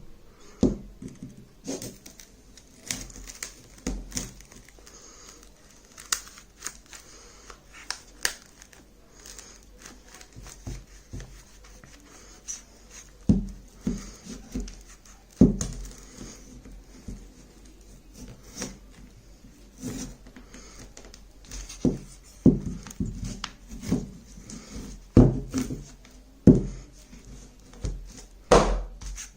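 A Lenovo tablet being pried apart by hand: irregular clicks, snaps and knocks of its plastic casing and clips giving way, with crinkling and tearing.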